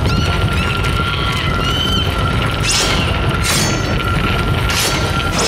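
Cartoon action soundtrack: music with a long held note over a continuous heavy low rumble, with three crashing hits in the second half.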